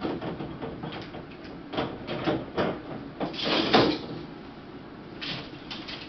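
Parts of a coated-steel-wire rolling cart being handled during assembly: a run of light knocks and clatters, with a longer scraping rustle about three seconds in.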